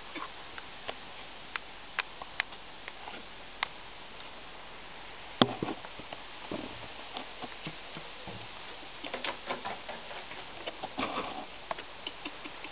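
Scattered sharp clicks and light taps over a steady faint hiss: a young Eurasian red squirrel's claws on wooden deck boards. There is a louder knock about five seconds in and a busier run of patter in the second half.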